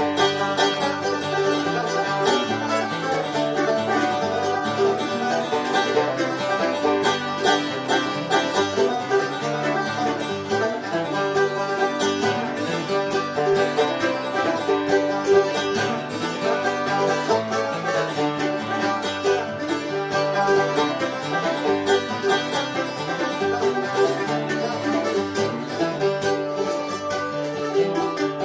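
Banjo and acoustic guitar playing a bluegrass tune, steady and without a break.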